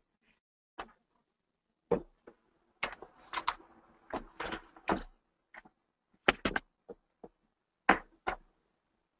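About fifteen short, sharp clicks and knocks at irregular intervals, some in quick pairs, with a faint rustle between them from about three to five seconds in.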